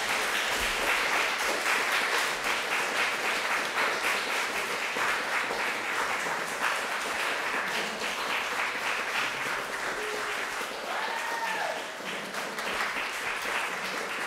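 Audience applauding: dense, steady clapping that gradually thins and fades toward the end.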